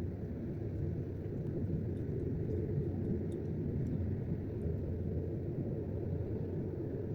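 A steady low rumble with no clear change.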